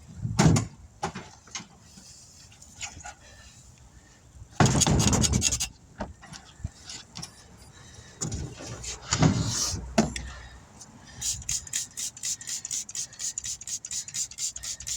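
Tire changer working a 20-inch truck tire onto its rim: bursts of rubber squealing and scraping against the rim. Near the end it turns into a fast, even clicking, about three to four clicks a second.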